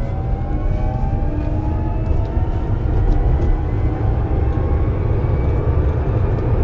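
Pickman low-speed electric truck driving: a heavy, steady low rumble of wind and tyres with a faint electric-motor whine slowly rising in pitch as it gathers speed.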